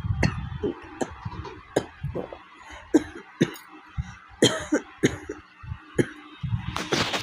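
A woman coughing again and again in short coughs, about one or two a second and unevenly spaced. It is a real cough from a head cold: her throat is sore after a week of fever.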